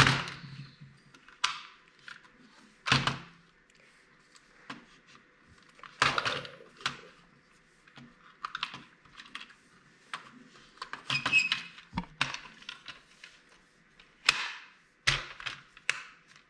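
Small plastic toy pieces clicking and knocking as they are handled and set down, in scattered irregular taps with short quiet gaps between them.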